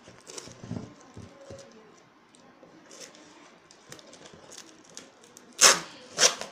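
Scissors cutting into a taped cardboard parcel box: small rustles and clicks of the packaging being handled, then two loud, short ripping sounds near the end as the blades cut through the tape and cardboard.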